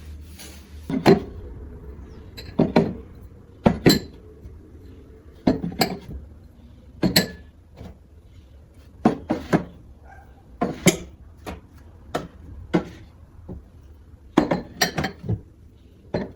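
Glasses and dishes being handled and set down on a hard surface, clinking and knocking at irregular intervals about once a second, some in quick pairs or triples.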